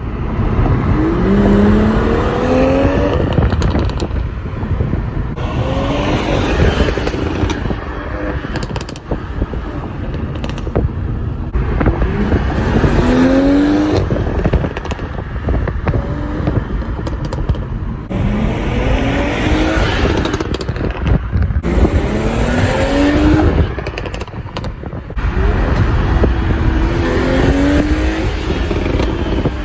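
BMW M340i's B58 3.0-litre turbocharged straight-six exhaust. The car is accelerating hard through the gears, the engine note rising on each of about five pulls, with crackling and popping on the overrun between pulls.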